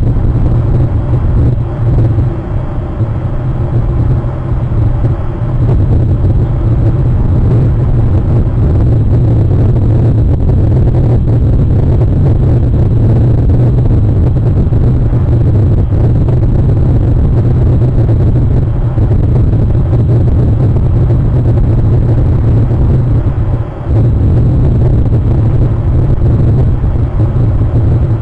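A loud, steady low rumble, briefly dipping about four seconds before the end.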